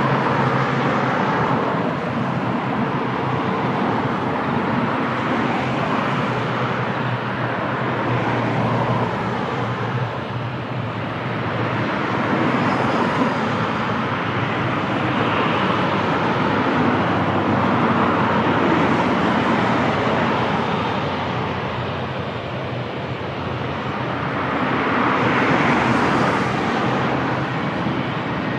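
Loud, steady engine noise that swells and eases every few seconds, with a low hum under it for the first several seconds.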